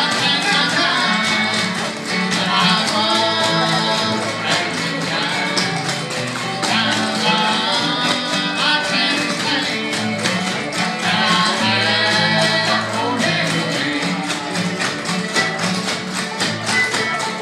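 Live bluegrass band playing a lively tune on fiddle, banjo, mandolin, guitar and upright bass, over a quick, even tapping beat.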